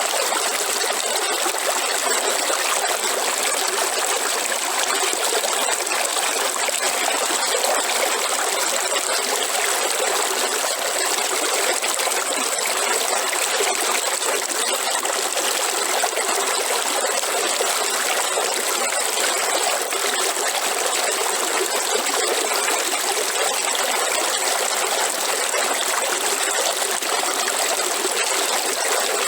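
River water flowing, a steady unbroken rush of water.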